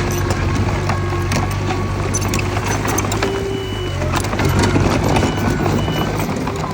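Diesel engine of a Mitsubishi BD2F crawler bulldozer running steadily, with a continuous scatter of metallic clicks and clanks from its tracks and blade.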